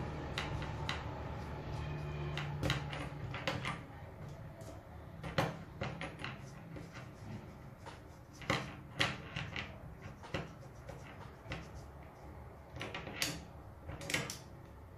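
Leather keychain being rubbed with cream and shifted about on a plastic cutting mat: irregular light clicks and knocks, its metal ring and clasp tapping and rattling, with soft rubbing between.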